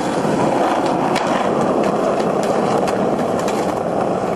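Skateboard wheels rolling over asphalt: a steady rolling noise with a few light clicks scattered through it.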